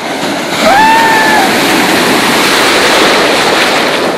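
Ocean surf breaking and washing through shallow water, the rush swelling about half a second in and staying loud. A short high-pitched cry, rising and then held, sounds about a second in.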